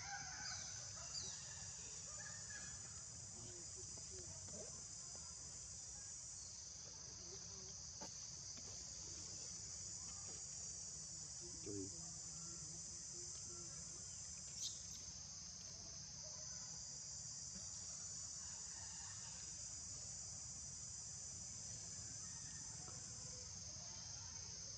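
Steady high-pitched chorus of insects, with a few short falling chirps, the clearest about two-thirds of the way through.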